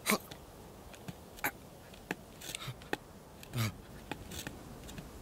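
A sheep's hooves tapping and scuffing on rock as it shifts its footing: scattered sharp clicks, with a short low sound about three and a half seconds in.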